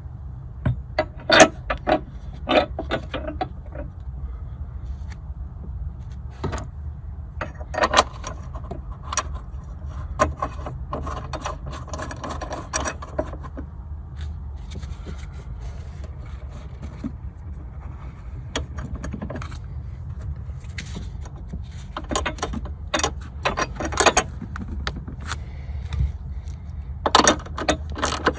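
Metal hand tools clinking and scraping in irregular sharp clicks, clustered at the start, in the middle and near the end, over a steady low hum.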